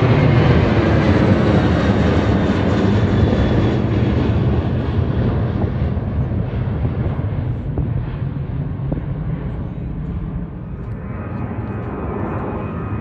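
Jet airliner's twin engines passing low overhead: a loud, steady jet rumble whose engine tones fall in pitch near the start, then slowly fade as the aircraft moves away.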